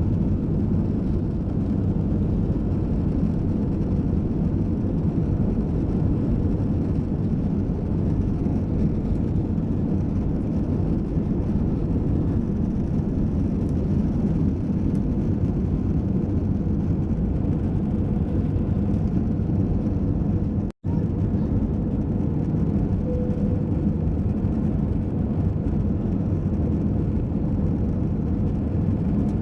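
Steady low roar of an Airbus A320's jet engines and airflow heard inside the cabin. The sound drops out for a moment about two-thirds of the way through, then goes on unchanged.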